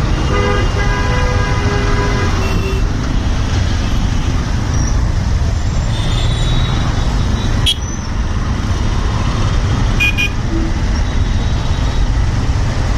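Steady rumble of a moving train, with a horn sounding for about two and a half seconds at the start and a couple of short clicks later on.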